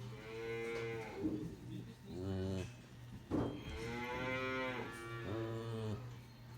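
Holstein dairy cattle mooing: about four calls, two long, drawn-out moos with a rise and fall in pitch and two shorter ones, over a steady low hum.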